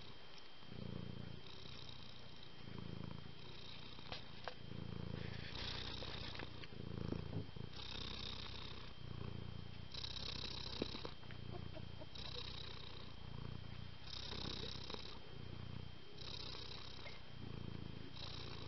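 Tabby cat purring close to the microphone, a steady rhythmic purr in which a low rumble and a breathier, higher hiss take turns about once a second.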